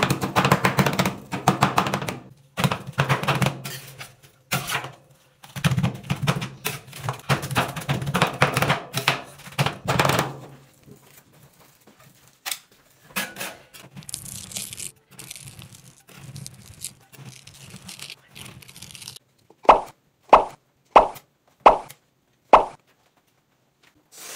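Metal spatulas chopping cake and ice cream base on a steel rolled-ice-cream cold plate: quick runs of chopping strokes through the first ten seconds, then softer scraping and mashing. Near the end come five or six short, sharp ringing taps.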